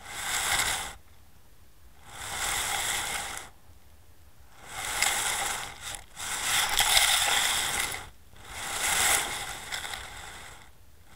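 Underwater camera and lead weight dragging over a shingle-and-shell seabed: five surges of gritty scraping, each a second or two long, with short quiet gaps between.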